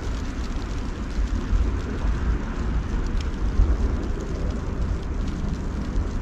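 Outdoor ambience of a snow-covered street during snowfall: a steady, fluctuating low rumble under an even hiss, with a few faint ticks.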